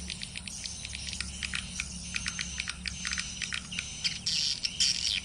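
Swiftlets twittering: a rapid, dense stream of short high chirps and clicks, over a low steady hum.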